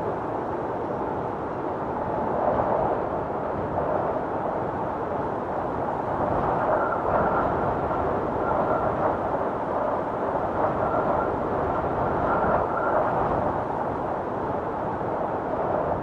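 Blizzard wind howling steadily, swelling and easing in gusts, with a faint high whistle coming and going through the middle of the stretch.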